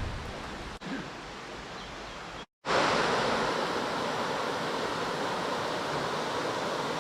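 River water rushing, a steady noisy rush. It breaks off in a short moment of silence about two and a half seconds in and comes back louder.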